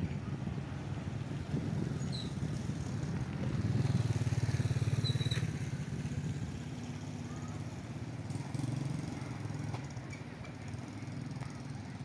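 A small engine running, growing louder to a peak about four to five seconds in and then fading away.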